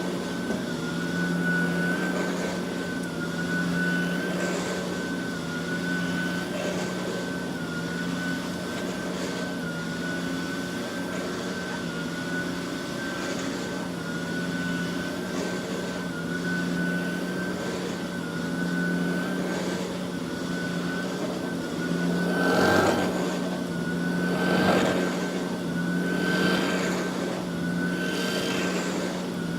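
Hoover Multi-Cyclonic canister vacuum running with its powered brush nozzle on: a steady motor whine over a low hum. Near the end come four surges of rushing noise, about two seconds apart, as the nozzle is worked over the floor.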